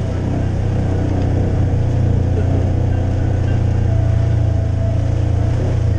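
Off-road vehicle's engine running under steady throttle with a low drone as it drives along a rough dirt trail, swelling slightly about midway.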